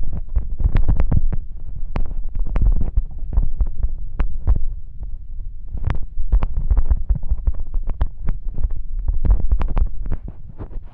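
Hungry stomach gurgling and growling, recorded close up: an irregular run of low bubbling pops and clicks over a deep rumble.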